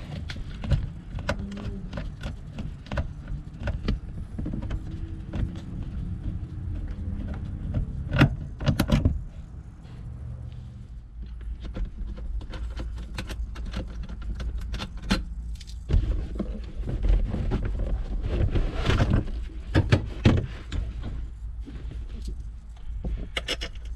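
Scattered clicks, knocks and rattles of hands unthreading loosened seat bolts and shifting the Toyota Tacoma's rear seat section in the cab. The loudest knocks come about 8 seconds in and again around 19 and 20 seconds.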